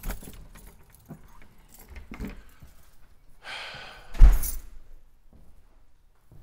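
Keys jangling with scattered clicks, then a door shutting with a loud thud a little over four seconds in.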